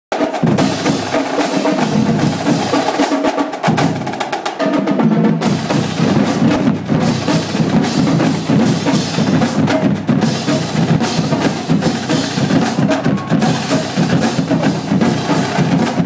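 Marching drumline playing a fast, dense cadence on snare drums and a row of bass drums.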